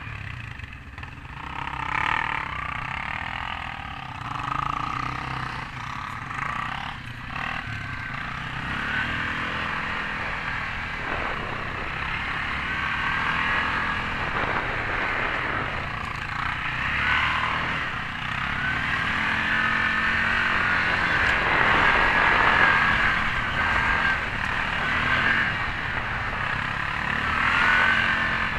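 Yamaha Grizzly 550 ATV's single-cylinder four-stroke engine running under load on a trail ride, its pitch rising and falling with the throttle. A higher whine climbs and drops with it as the quad speeds up.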